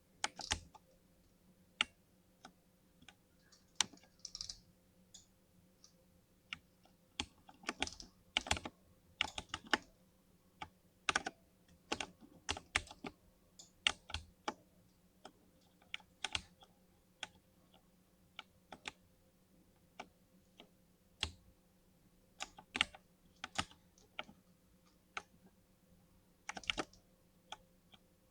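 Typing on a Tech Utopia mechanical gaming keyboard with linear switches: uneven key presses, some single strokes with short pauses between them and some in quick runs of several keys.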